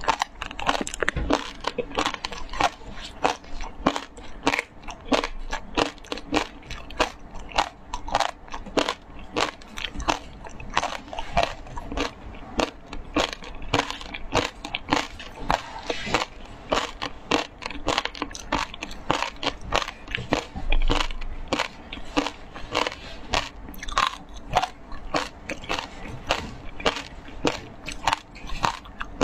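Close-up chewing of frozen shaved ice with passion fruit, a steady run of sharp crunches, several a second, with one heavier crunch about two-thirds of the way through.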